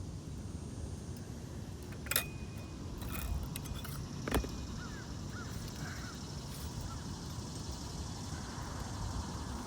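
Two sharp metallic taps about two seconds apart, a hammer striking a roof snake while setting a roofing nail under a shingle, the first leaving a thin ringing tone, over a steady low outdoor rumble with faint high chirps.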